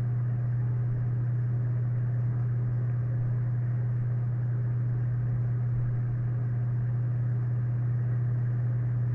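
Steady low hum with a faint hiss underneath, unchanging throughout, and no speech.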